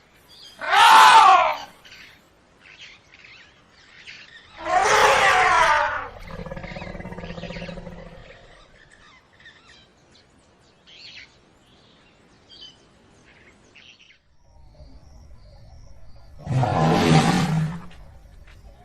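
Elephant trumpeting: three loud calls, each about a second long with a sliding pitch, the second followed by a low rumble lasting about two seconds.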